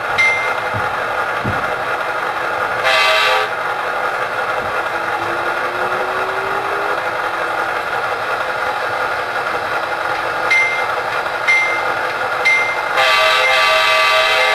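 Sound-equipped HO scale Southern Pacific diesel locomotive model, its recorded diesel engine running steadily through the model's speaker. A bell dings about once a second at the start and again near the end. The horn sounds twice: a short blast about three seconds in and a longer one near the end.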